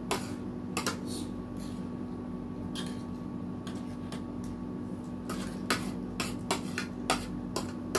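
Spoons and forks clinking and scraping against bowls and plates during a meal: scattered sharp clicks that come thicker in the second half, over a steady low hum.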